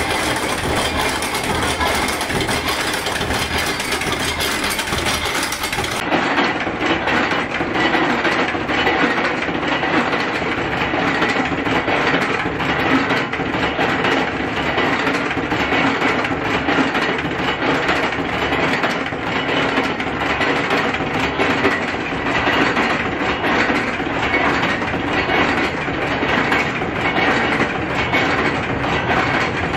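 Steady mechanical clatter and rattling of metal workshop machinery, a dense run of fast clicks with no pause. About six seconds in it turns duller as the top end drops away.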